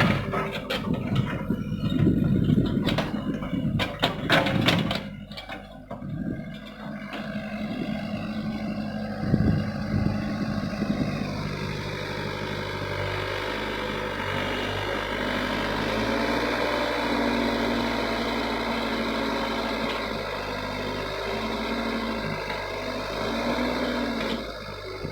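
Hyundai excavator's diesel engine running steadily, its pitch shifting a couple of times. There is a run of knocks and clatters in the first several seconds as the machine works.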